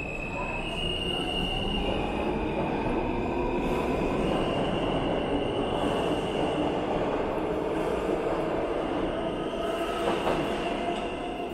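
New York City subway F train pulling out of the station and gathering speed: a rumble of wheels on rail, with steady high whining tones that step up in pitch and a lower whine climbing slowly as it accelerates. It swells to its loudest midway and eases off near the end as the last car passes.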